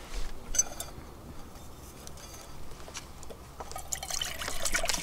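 Water pouring from a jerry can into a stainless steel camping cup, starting about three and a half seconds in and growing louder. A few light clicks come near the start.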